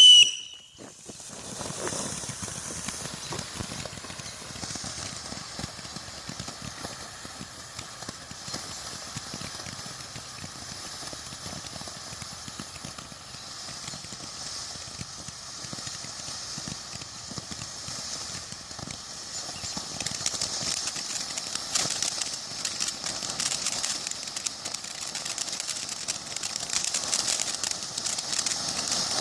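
World Class 'Frosty Mug of Beer' firework fountain burning: a whistle falls away at the very start, then a steady hiss of spraying sparks thick with fine crackling, getting louder about twenty seconds in.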